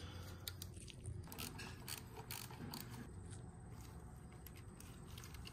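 Faint, repeated clicking of a hand ratchet with a 17 mm socket, working the oil-screen cap loose on a Honda Navi engine to pull the oil strainer screen.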